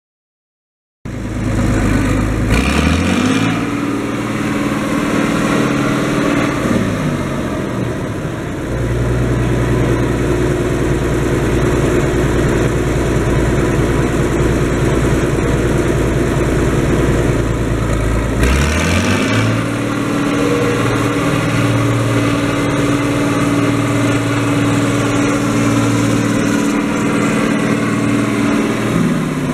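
Minneapolis-Moline six-cylinder diesel engine of a 1971 A4T-1600 4WD tractor starts up about a second in and revs up. It holds at high revs for a few seconds, drops back to a steady low idle, then revs up again and holds high before falling back near the end.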